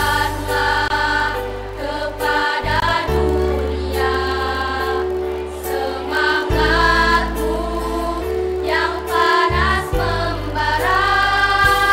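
Girls' choir singing together, their sung notes wavering and shifting, over sustained low accompaniment chords that change every few seconds.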